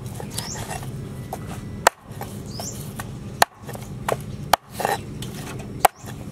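Knife chopping lemongrass stalks on a wooden cutting board: four sharp chops about a second or so apart, with lighter knocks of the blade in between.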